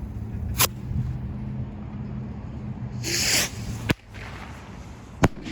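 Non-whistling bottle rockets going off: a short hiss of a launch about three seconds in, and sharp cracks before and after it, the loudest near the end.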